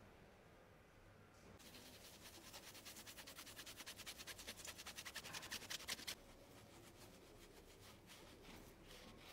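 Cloth rubbing quickly back and forth along a straight razor's steel blade as it is polished. The fast, even rubbing strokes grow louder and stop suddenly about six seconds in, and fainter strokes follow.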